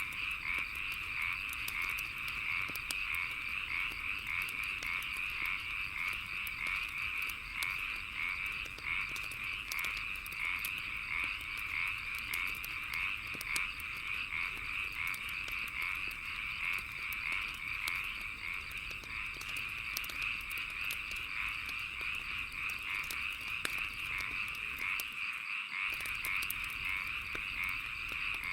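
A dense chorus of frogs and insects calling steadily in a fast, continuous pulsing trill. Over it, a wood bonfire crackles with scattered sharp pops.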